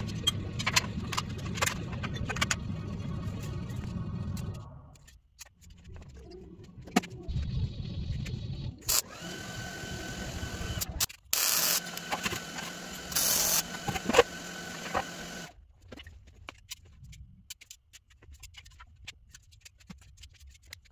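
Welding on a steel square-tube cart frame: a steady electric buzz with crackle in several bursts, separated by knocks and clanks of steel.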